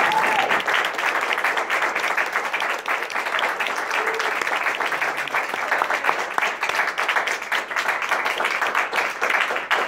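Small audience applauding, many hands clapping at a steady level throughout.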